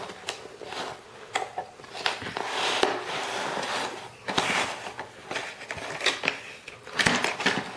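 Scissors clicking and working at the wire twist ties that hold a toy blaster in its box, with rustling of the packaging and a handful of sharp clicks.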